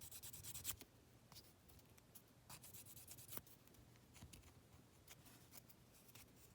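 Faint scratchy strokes of a foam sanding stick rubbing on a polystyrene model part, smoothing a glued seam. The strokes are closer together for the first second, then come sparse and irregular.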